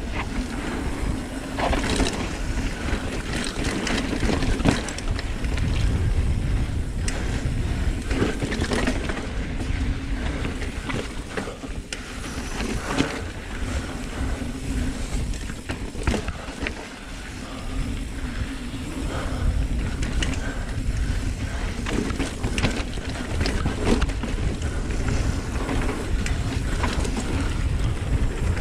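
Kona Honzo ST hardtail mountain bike rolling fast down a dirt trail: a steady rumble of tyres and wind on the camera's microphone, with frequent clicks and clatters from the bike over bumps.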